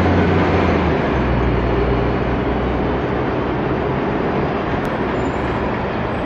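City street traffic noise. The low drone of a diesel double-decker bus engine fades over the first three seconds as the bus pulls away.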